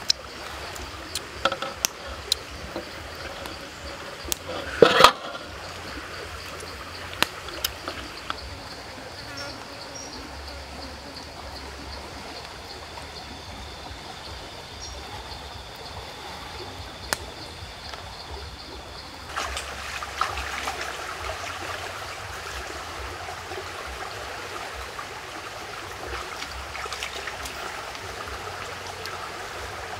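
Steady rushing of flowing stream water with a thin insect tone in the middle. A few light clicks and one louder knock come in the first several seconds, and the water sound steps up abruptly about two-thirds of the way through.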